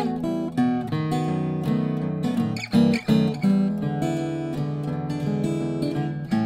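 Archtop guitar playing music, plucked notes and strummed chords changing every second or so, with a few sharp, loud strums about three seconds in.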